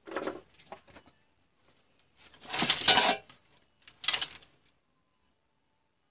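Handling noise of small parts on a workbench: short scraping clatters in three separate bursts, the longest and loudest about three seconds in, as a length of wire is laid down among the battery cells.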